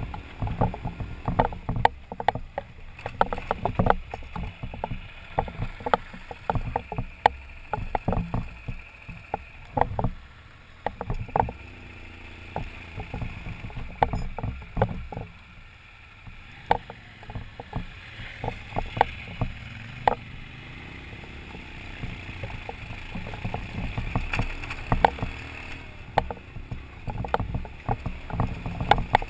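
BMW adventure motorcycle running at low speed up a rocky dirt track, its engine a low rumble under frequent knocks and rattles as the bike jolts over rocks. It goes quieter and smoother through the middle for several seconds.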